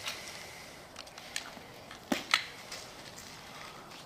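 A few light clicks and knocks from a hand handling a BSA Ultra CLX air rifle, with the sharpest knock about two seconds in.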